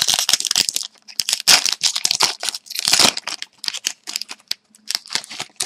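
Crinkling and tearing of a hockey card pack's wrapper as it is ripped open, a dense run of crackles and rustles.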